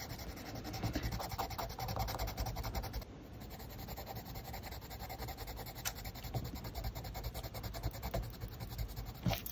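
Caran d'Ache Luminance wax-based colored pencil rubbed quickly back and forth on paper, a soft steady scratching as a color swatch is filled in. It goes a little quieter about three seconds in as the next swatch is started.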